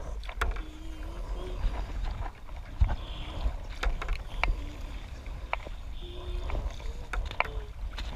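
Paddle strokes and water splashing and slapping against a paddleboard, with irregular sharp splashes over a steady wind rumble on the microphone.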